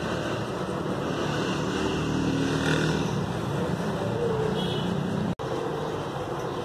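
A vehicle engine running steadily, with a momentary dropout a little over five seconds in.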